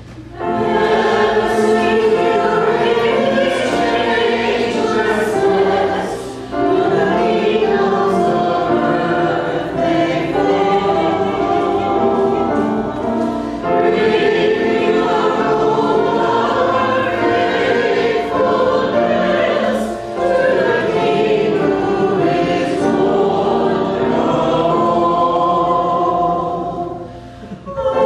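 Church choir singing a sacred piece in long sustained phrases, with short breaks between phrases about every six or seven seconds.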